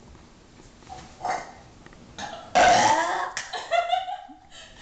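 A person letting out a loud, drawn-out burp about two and a half seconds in, lasting about two seconds and falling in pitch as it ends.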